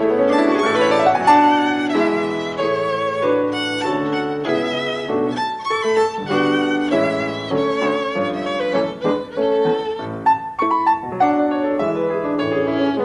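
Instrumental music led by a violin playing a melody with vibrato, with a rising slide about a second in.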